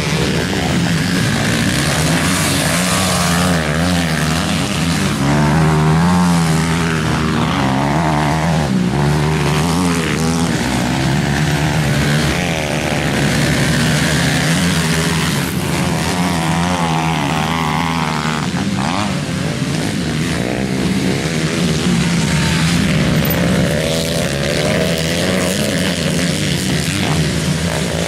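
Several motocross dirt bike engines running hard on a dirt track, their pitch repeatedly climbing and dropping as the riders rev and shift gears.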